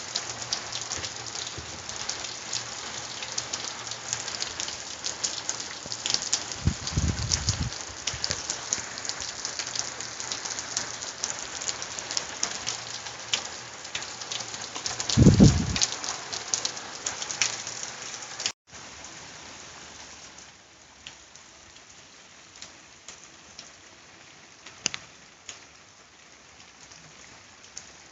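Heavy summer thunderstorm downpour, a dense hiss of rain with many sharp drop hits, broken twice by a short low rumble, the second about halfway through the loudest. After a cut about two-thirds through, the rain is much lighter, with scattered drips.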